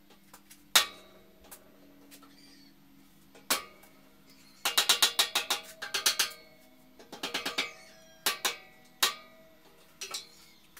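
Hammer striking steel: single knocks about a second in and at three and a half seconds, then two quick runs of taps near the middle, and a few more single knocks near the end. The steel frame rings briefly after each strike.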